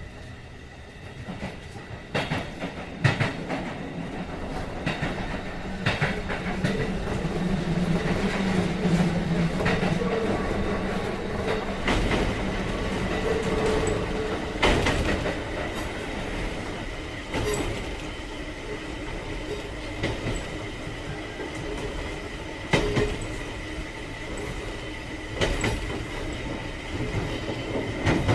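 Train-running sound effect for an old electric railcar: wheels rolling along the track, knocking over rail joints at uneven intervals, with a thin steady high tone. The rolling noise builds up about two seconds in.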